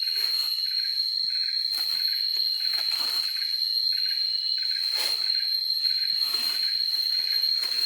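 Insects chirring, a steady high-pitched whine with a pulsing buzz beneath it. Short rustling or scuffing noises break in every second or so.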